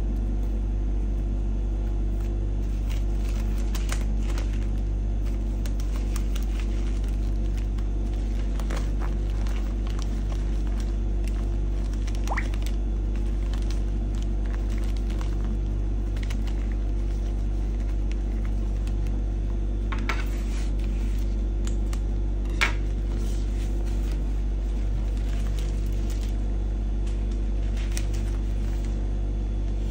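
Steady low hum, with faint rustles and light taps from a paper-wrapped bubble-balloon bouquet being handled; one sharper tap comes about three quarters of the way through.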